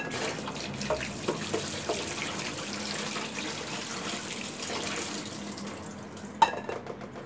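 Kitchen tap running into the sink, water splashing steadily with a few light knocks of dishware. About six seconds in there is a sharp clack and the water stops.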